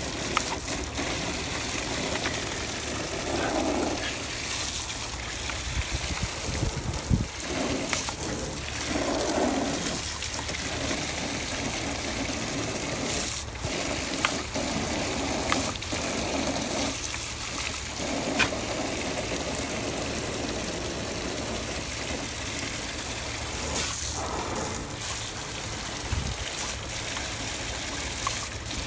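Water from a garden hose pouring and splashing steadily onto the ground. A dog snapping and lapping at the stream breaks it up now and then, with short splashy surges.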